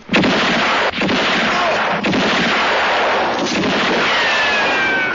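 Gunfire sound effect: loud blasts following one another, with a whistle falling in pitch near the end.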